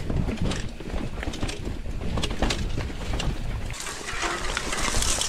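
Mountain bike riding down a rough dirt trail: a steady rumble of tyres over the ground with frequent rattles and clicks from the bike, and wind on the microphone. A louder hiss comes in about four seconds in.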